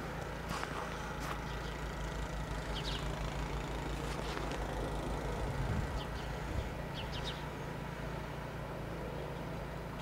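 Steady low engine rumble of distant vehicle traffic, with a few short high bird chirps scattered through it.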